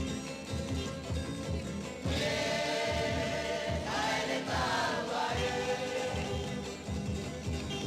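Music with a choir singing held notes over a steady low beat.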